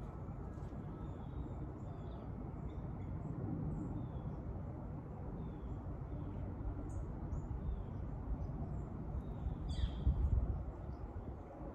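Birds chirping and calling in short scattered notes, with a louder cluster about ten seconds in, over a steady low outdoor rumble.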